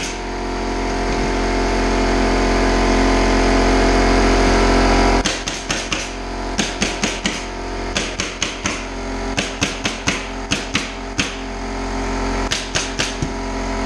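Pneumatic flooring stapler firing staples into plywood underlayment, sharp shots coming in quick bursts of several a second. For the first five seconds an air compressor runs, growing louder, then cuts off suddenly.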